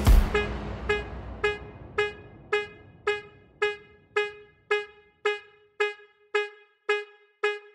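Background music broken down to a single short pitched note repeating evenly about twice a second, each note dying away quickly.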